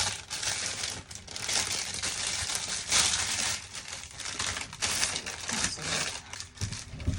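Plastic packaging crinkling and rustling irregularly as it is handled and opened.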